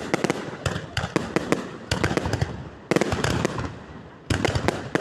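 Fireworks going off in quick volleys: dense sharp bangs and crackles in bunches about a second apart, easing into a short lull before a new volley breaks out near the end.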